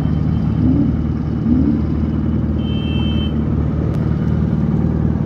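Royal Enfield motorcycle engine idling with a steady low rumble. A vehicle horn toots once, briefly, about three seconds in.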